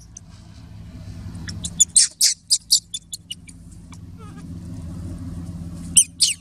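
Baby macaque screaming in short, very high-pitched shrieks: a rapid run about two seconds in and another cluster near the end, over a steady low hum.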